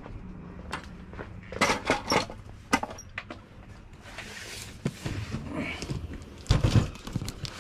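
Knocks, clicks and clatter of things being handled and moved about, with a brief scrape midway and a heavy thump about six and a half seconds in.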